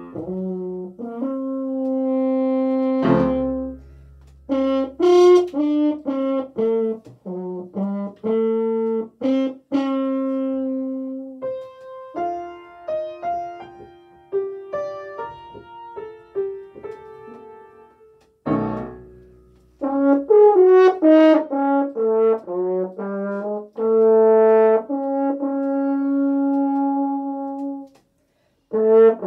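French horn playing a melody of held and moving notes, with piano accompaniment underneath. The playing goes softer for a few seconds in the middle before the horn comes back strongly.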